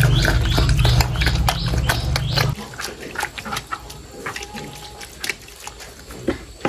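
Pig eating soft fermented banana feed at a trough: loud, busy chewing and smacking that stops abruptly about two and a half seconds in, followed by softer scattered clicks and knocks.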